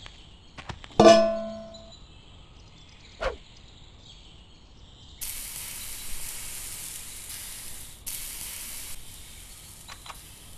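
A metal frying pan clangs onto a grill grate and rings for about a second, followed by a smaller knock. From about halfway through, a steady hiss starts suddenly and breaks off twice.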